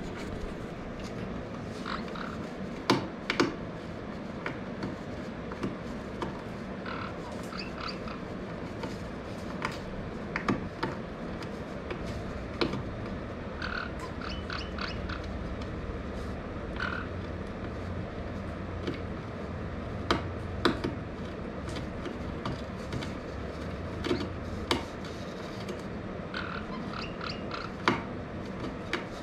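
A small parrot gnawing at a wooden cupboard edge with its beak: scattered sharp cracks and knocks of chewed wood, with about eight louder snaps, and short squeaks in between, over a steady low hum.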